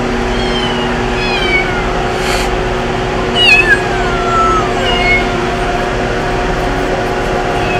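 Several cats meowing, a handful of separate calls that fall in pitch, the loudest about three and a half seconds in, over a steady droning hum.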